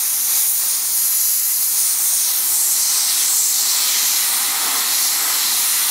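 Airbrush spraying paint: a steady hiss of compressed air from the nozzle, fed from a compressor regulated down to about 60 psi.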